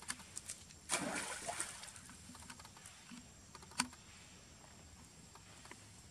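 Water splashing and small clicks as macaques clamber on wet stone steps and enter a pool. There is a short splash about a second in and a sharp click just before the four-second mark, with light ticks in between.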